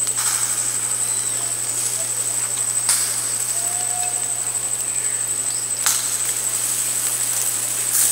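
Steady high-pitched insect trill, with a few sharp clicks of metal tongs against the wire grill grate as chicken legs are turned over charcoal.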